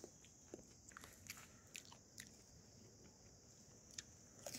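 Faint, irregular crisp crunches of a person biting and chewing a slice of raw hill cucumber.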